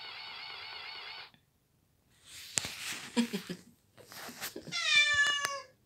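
A toy plush cat's electronic crying-meow sound plays steadily, then cuts off about a second in. After a short silence, a frightened tabby cat hisses in breathy bursts and then lets out one loud, slightly falling meow near the end.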